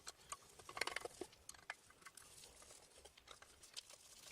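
Near silence with faint, scattered small clicks and taps as screws and the side panel of an airbrush compressor are worked loose.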